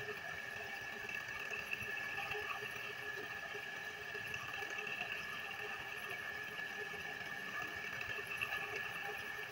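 Wood lathe running freely with no cutting, a turned wooden spindle spinning between centres; a steady machine whine that does not change.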